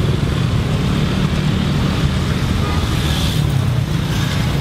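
Steady low rumble of road traffic, cars and motorbikes running past on the street, with a brief hiss about three seconds in.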